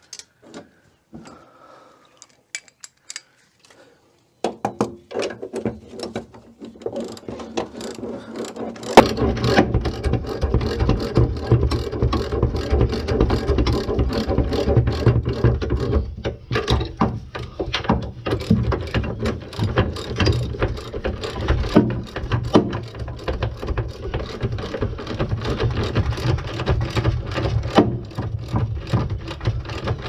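Ratchet wrench clicking as the pedal assembly's mounting bolts are tightened: a few scattered clicks at first, then steady, rapid ratcheting from about nine seconds in.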